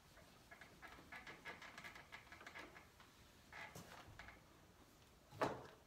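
Faint quick strokes of an eraser wiping a whiteboard, then a single soft thump near the end.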